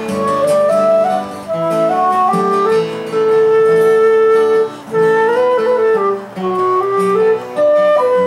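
Flute playing a melody over acoustic guitar, with one long held note about halfway through.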